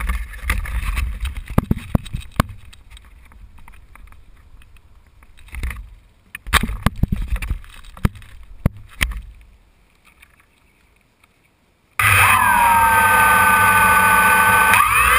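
Muffled rumbling and scattered knocks, heard through a GoPro waterproof housing. About 12 seconds in, a DJI Phantom quadcopter's motors start suddenly with a loud whine of several tones, which rise in pitch near the end as the drone throttles up.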